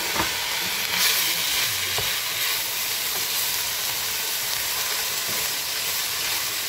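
Vegetables sizzling in hot oil in a stainless steel pot as they are stir-fried with a wooden spatula: a steady hiss, with a few knocks of the spatula against the pot in the first couple of seconds.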